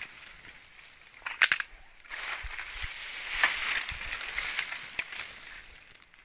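Dry bamboo, twigs and leaf litter crackling and snapping underfoot and against the body as someone pushes through undergrowth. A few sharp cracks come about a second and a half in, with single clicks later on.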